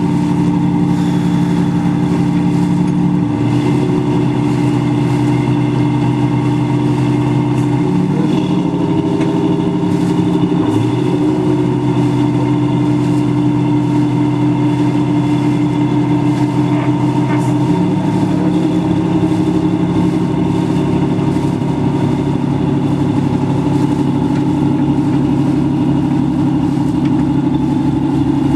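Work boat's engine running steadily while the vessel manoeuvres, its pitch stepping down and up a few times as the throttle is changed.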